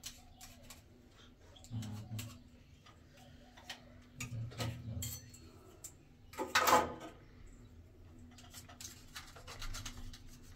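Small metallic clicks and clinks of a chrome shower slide bar and its fittings being handled and positioned against a tiled wall, with a louder scrape about six and a half seconds in.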